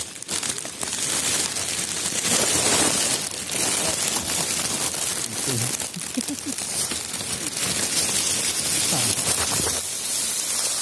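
Dry bamboo leaves crunching and crackling with rubbing and scraping on the microphone as a person slips and slides down a steep slope of leaf litter, continuous dense crackle throughout.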